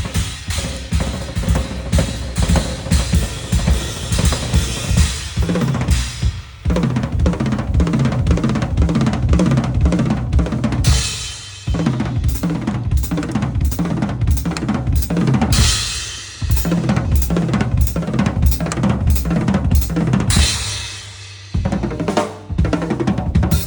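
Drum kit played live: rapid kick and snare strokes with cymbal crashes, the playing easing off briefly about every five seconds before starting again, as in a sound check.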